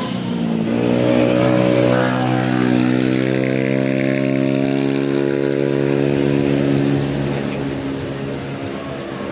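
A bus engine running under load as the bus drives past. A steady, pitched engine drone comes in about a second in and fades over the last couple of seconds.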